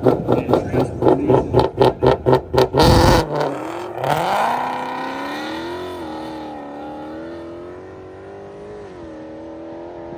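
Drag car's engine pulsing hard about four times a second on the start line, then launching and pulling away down the strip. Its pitch climbs and drops back at gear changes while it fades into the distance.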